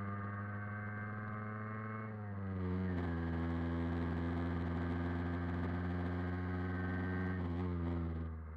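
Old moped's engine running under way, its pitch falling about two seconds in as it eases off, then holding steady, with another dip near the end.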